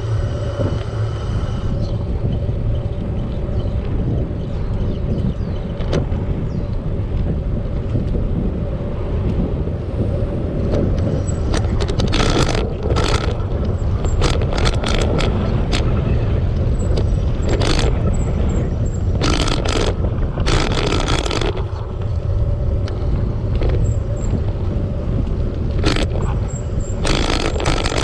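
Steady low rumble of wind buffeting the microphone while cycling. From about the middle on, a dozen or so short, harsh bursts of noise come at irregular intervals.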